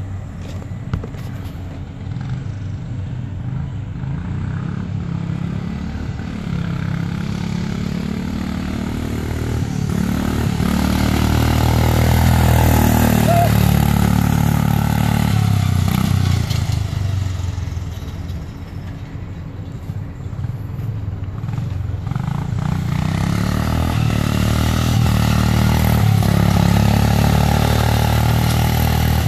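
Turbocharged Gilson lawn tractor's Kohler engine running under throttle, its pitch rising and falling as it speeds up and slows. It grows louder in the middle, fades, and swells again near the end as the tractor passes closer.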